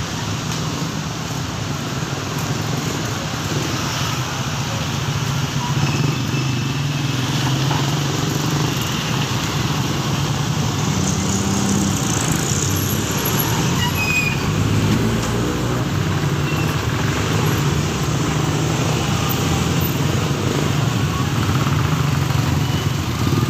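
Steady street traffic: motorcycles and cars passing close by with a continuous mix of engine noise and tyre rumble.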